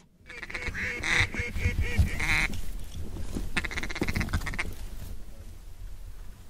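Mallard-style quacking in rapid series: a run of calls lasting about two seconds, then a shorter run about a second later, over a low steady rumble.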